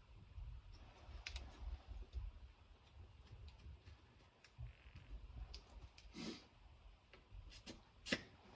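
Faint clicks and handling noises from checking a tire's pressure with a hand-held tire pressure gauge at the valve stem. There is a short burst of noise about six seconds in and a sharper click near the end.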